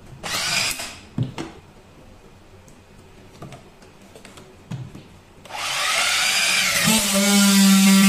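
Battery-powered plastic strapping tool working a green strap. It starts with a short motor whir, then a few clicks and knocks as the strap is handled. From about five and a half seconds the tensioning motor runs with a wavering pitch, and about seven seconds in a clunk is followed by a loud, steady low buzz as the tool seals the strap.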